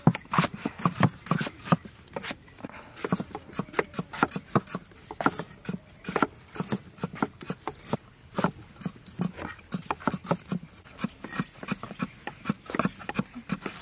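Knives and cleavers chopping vegetables on a thick wooden cutting board: eggplant and potato, then lemongrass. The blade strikes the board in quick, irregular knocks, several a second.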